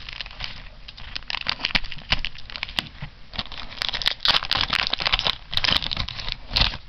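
A foil trading-card booster pack wrapper crinkling and tearing as it is opened by hand, with a rapid crackle that grows louder in the second half.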